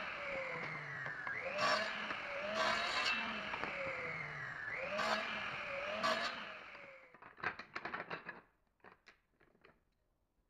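Electric mitre saw running and cross-cutting thin wooden strips, its motor pitch dropping under load and recovering with each cut, with a sharp crack as the blade goes through. The motor winds down about seven seconds in, followed by a few light clicks and knocks.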